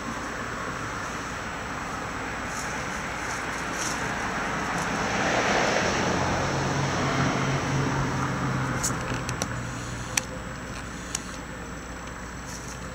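A road vehicle passing: its noise swells to a peak around the middle and fades away, with a low hum at the loudest part. A few sharp clicks follow near the end.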